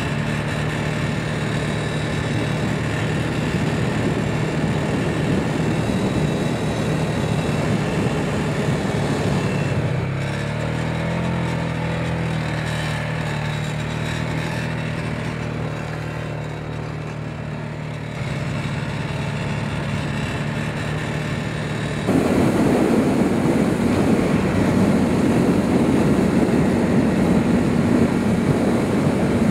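A 4-wheeler (ATV) engine running steadily while riding a dirt track, its note shifting about ten seconds in and again near eighteen seconds. About twenty-two seconds in the sound jumps suddenly louder and rougher.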